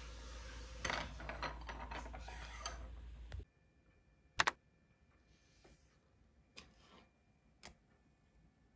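Light clatter of tableware at a meal, many quick clicks and taps over a low room hum, which stops abruptly after about three and a half seconds. Then a quiet room with a few isolated sharp clicks, the loudest about four and a half seconds in.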